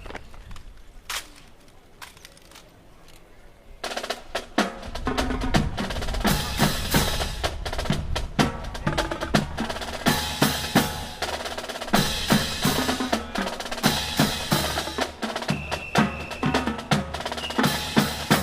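Snare drum playing a fast, dense cadence with rolls and sharp accented strokes. It starts about four seconds in, after a few lone clicks.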